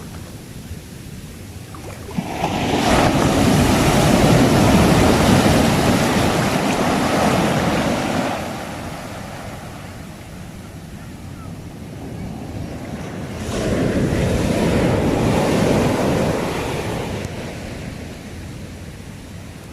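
Sea waves washing in on the shore: two swells of rushing surf, the first rising about two seconds in and fading after several seconds, the second coming in past the middle and easing off near the end.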